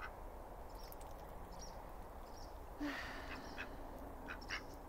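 Domestic ducks quacking quietly: one short raspy quack about three seconds in, with a few brief soft calls around it.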